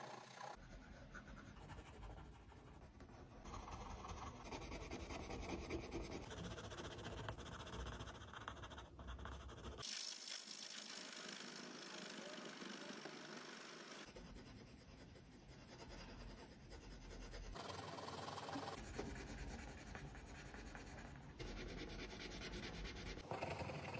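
Faint scratching of colored pencils shading on paper, in several stretches that change abruptly.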